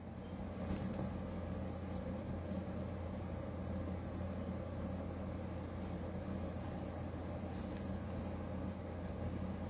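A steady low hum over faint background noise, with no speech.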